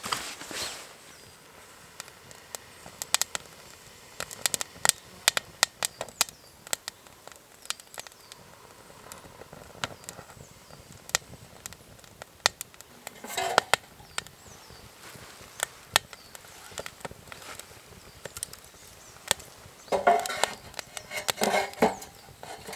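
Wood snapping and crackling in many sharp, irregular cracks, with short bursts of rustling or scraping about 13 seconds in and again near the end.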